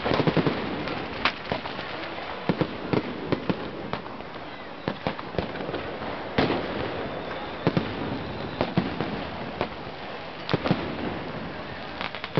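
Fireworks display: a steady crackle with sharp, irregular bangs, sometimes several in quick succession.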